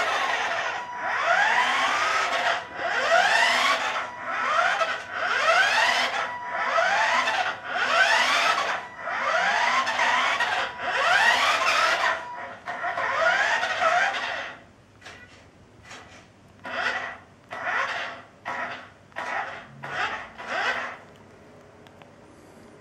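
Small electric drive motor and gears of a toy RC car whirring in repeated spurts, about one a second, each rising in pitch as the motor spins up. About 15 seconds in the spurts turn shorter and quieter, stopping near the end.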